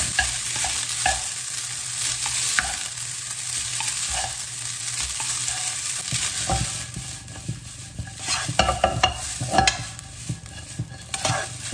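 Rice noodles and vegetables sizzling in a hot nonstick wok as they are stirred and tossed with chopsticks and a spatula. From about seven seconds in, the utensils knock and scrape against the pan in quick, irregular clicks.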